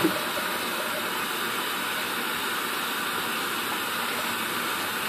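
Kitchen faucet running steadily into a metal sink while hands are washed under the stream.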